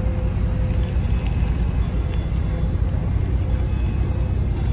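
Wind rumbling on a handheld phone's microphone over steady city street traffic noise.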